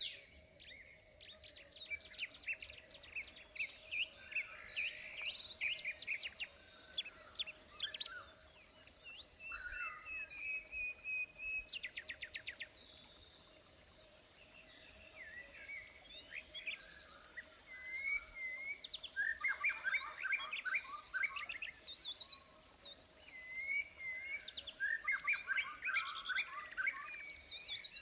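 Several birds chirping and singing over one another in quick trills, rapid repeated notes and short whistled calls, thinning out for a few seconds midway before picking up again. A faint steady hum runs underneath.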